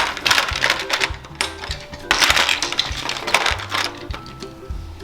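Plastic Lego bricks clattering and clicking as hands rummage through a pile of pieces, in two bursts, the second starting about two seconds in. A quiet background music track with a steady bass line runs underneath.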